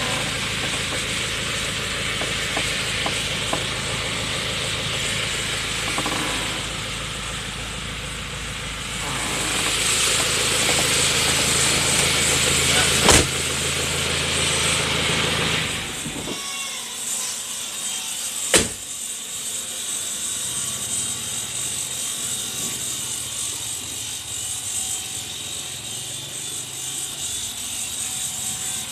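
Isuzu 4JB1 four-cylinder turbo diesel engine running steadily, getting louder and brighter about ten seconds in, then dropping away abruptly about sixteen seconds in, leaving a quieter hiss. Two sharp clicks, one before and one after the drop.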